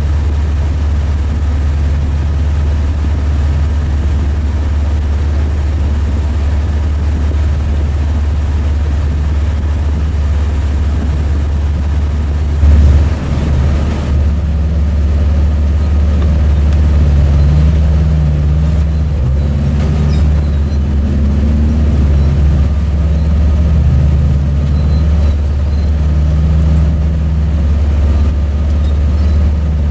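Jeep Wrangler engines running at low revs while crawling over rocks, the pitch rising and falling a little with the throttle. A short loud bump about a third of the way in.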